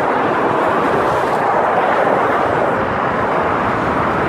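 Steady, loud rush of highway traffic: cars and trucks driving by on the road below the overpass, with no horn or other distinct event standing out.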